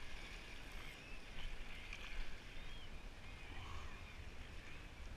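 Small sea waves washing and lapping against shoreline rocks, a faint, even wash of water with a low rumble of wind on the microphone.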